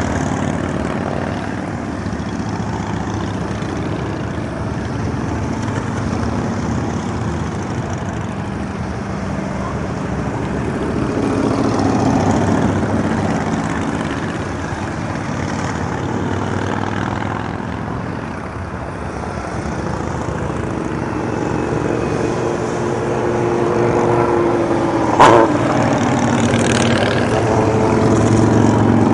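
Cruiser and touring motorcycles riding past one after another in a long procession, their engines rising and falling in level as each group goes by. A brief sharp click near the end is the loudest moment.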